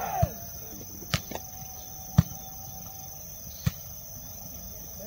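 Volleyball struck four times in a beach volleyball rally, sharp thuds about a second or so apart, the third the loudest, over a steady high-pitched whine.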